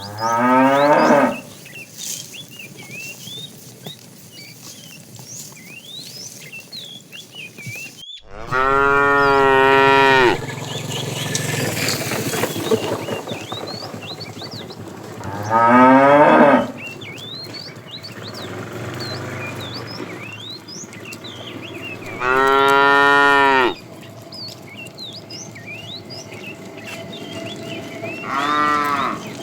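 Cattle mooing: five long moos spread out, about every six to seven seconds, two of them rising in pitch and the last one fainter. Small birds chirp in the background throughout.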